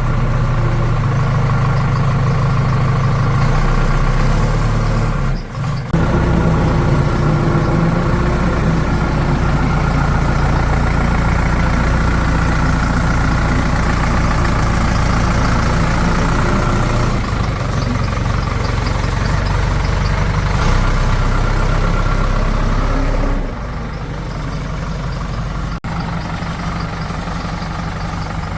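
Heavy diesel engine running steadily with a deep low rumble. The sound changes abruptly about six seconds in and again about 23 seconds in, with one short click near the end.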